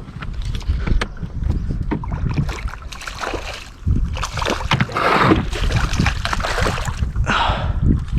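Wind buffeting the microphone and water moving around a small boat, with scattered knocks against the hull and two louder noisy rushes about five and seven and a half seconds in.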